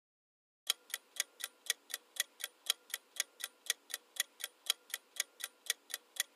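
Quiz countdown-timer sound effect: clock-like ticking, about four ticks a second, starting under a second in and counting down the guessing time.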